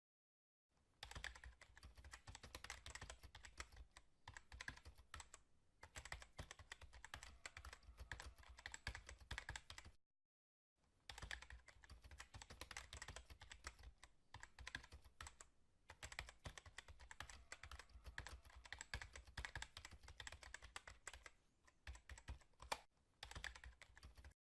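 Faint, rapid, continuous clicking, like typing, in two long runs broken by a short stretch of total silence about ten seconds in.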